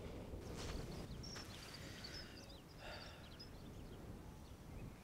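Wind buffeting the microphone with a low rumble, and a few faint high chirps partway through.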